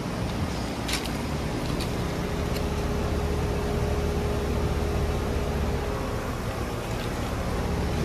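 2006 Carrier Comfort Series heat pump running in heat mode: a steady compressor hum under the outdoor fan's even rush of air, with a faint steady tone through the middle. A few faint clicks near the start.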